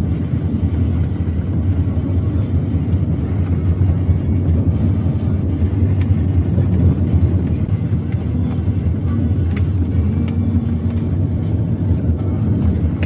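Steady low engine and road rumble of a car, heard from inside the cabin while driving.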